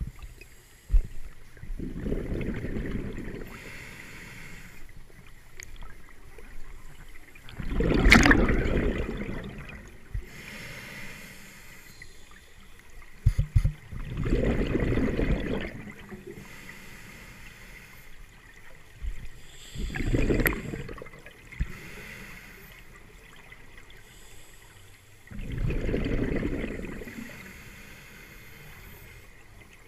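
Scuba regulator breathing heard underwater: a soft hiss of each inhalation alternating with a rumbling burst of exhaled bubbles, five breaths about six seconds apart. A couple of sharp knocks stand out, one about a second in.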